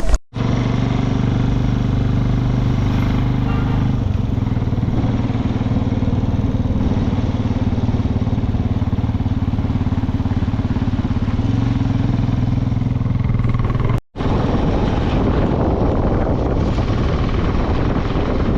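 Sidecar motorcycle's engine running steadily while riding at an even speed. The sound breaks off for a moment just after the start and again about 14 seconds in.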